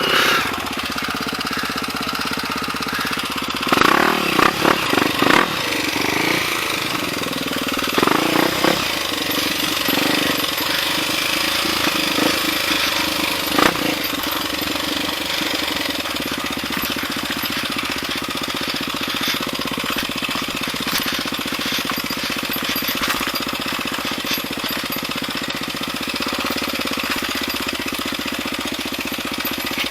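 Trail dirt-bike engine running steadily, with clusters of loud knocks and rattles about four seconds in and again about eight seconds in.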